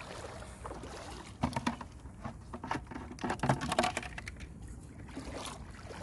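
Shallow water splashing and sloshing, with a quick run of splashes between about one and a half and four seconds in, as someone wades and jabs a crab-fishing spear into the water.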